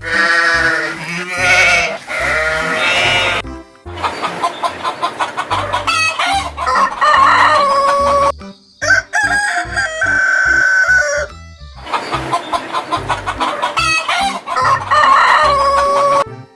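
Roosters crowing, several long crows one after another, each ending on a held note.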